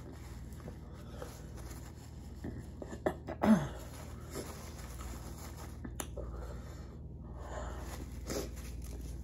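Paper napkin crumpling and rustling as hands and mouth are wiped. About three and a half seconds in there is a short sound from the throat that drops in pitch.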